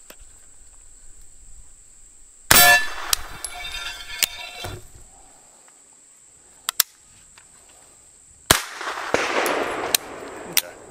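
A 9mm AK-V carbine shot about two and a half seconds in, with the AR500 steel plate clanging and ringing on the hit. A few small clicks follow, then a second sharp crack about eight and a half seconds in, followed by about a second and a half of rushing noise.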